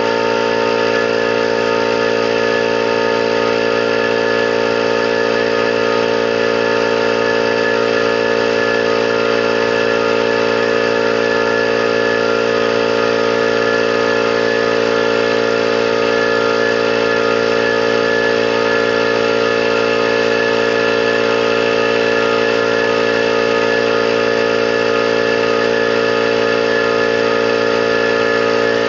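21-gallon electric air compressor running steadily under load, its pump filling the tank with an even, unchanging tone.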